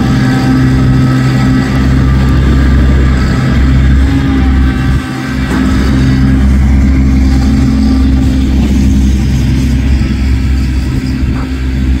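Kubota compact tractor's diesel engine running steadily as it plows snow, dipping briefly about five seconds in.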